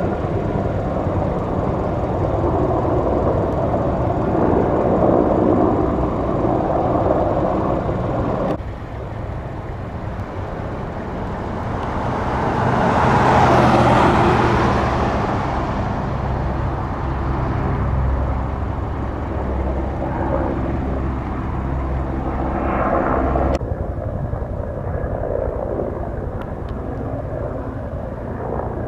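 Firefighting aircraft working overhead. First comes the steady drone of a Sikorsky S-64 Skycrane heavy-lift helicopter's turbines and rotor. Then the sound changes abruptly to a louder aircraft that swells as it passes over around the middle and fades, with a steady low hum after it, and changes abruptly again near the end.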